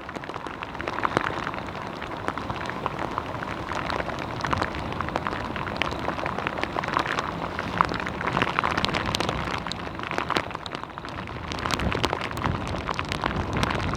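Rain and rain-swollen stream water: a steady wash of running water with a dense, irregular patter of drops and splashes.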